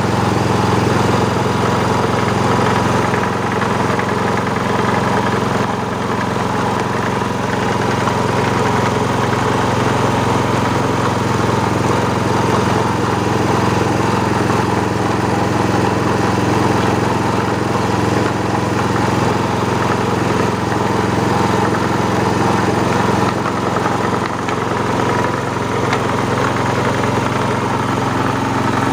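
Motor-driven mincer-style grinding mill running steadily under load while it grinds a chili mixture for sambal, a constant even drone with no breaks.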